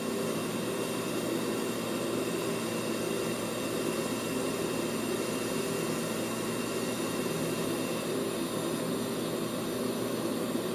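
TIG welding arc burning steadily on a practice plate as filler rod is added to the puddle: a continuous hiss with a faint steady buzz.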